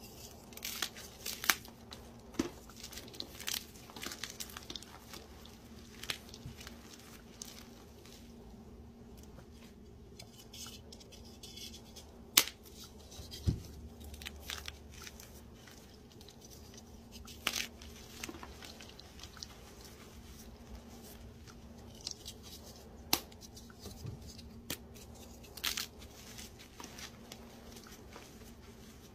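Hands crushing and crumbling crunchy dyed powdery blocks: an uneven crackle of breaking, gritty material with scattered sharp snaps as pieces break off, a few of them louder than the rest.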